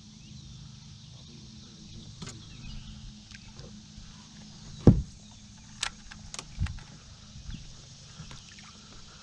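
Knocks and clicks of fishing tackle being handled on a boat deck, with one loud thump about five seconds in and a few smaller knocks just after, over a steady low hum.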